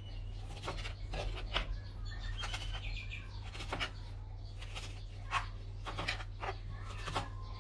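Kitchen knife slicing fresh red chilis lengthwise on a plastic cutting board: about a dozen irregular knocks and clicks of the blade against the board, over a steady low hum.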